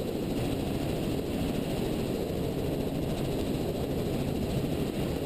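Helicopter in flight, a steady low rumble of engine and rotor noise with no change in pitch or level as it climbs away after takeoff.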